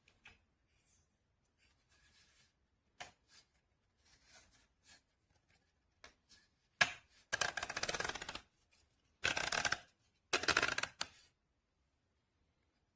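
Handling noises: scattered faint clicks, a sharp click about seven seconds in, then three bursts of rustling, each about a second long.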